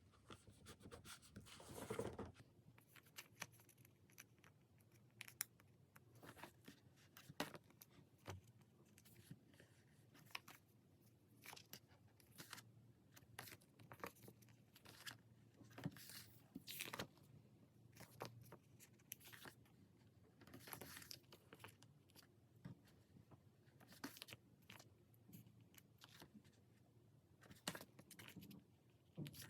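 Quiet, irregular handling of stickers and paper: short tearing, peeling and rustling swishes with small taps and clicks, a longer tearing sound about two seconds in.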